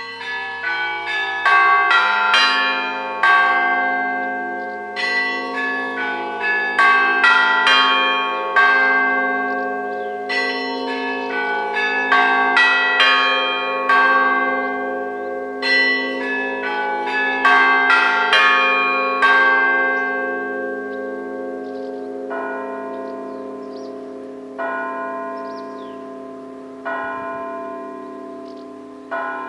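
Russian Orthodox church bells ringing: a quick, busy pattern of higher bells struck over larger bells whose hum rings on beneath. After about twenty seconds the quick strikes stop, and strokes come only every two seconds or so while the lower bells keep sounding.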